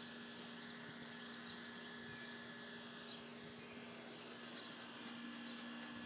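Quiet outdoor yard ambience: a faint steady hum with soft, high chirps every second or so.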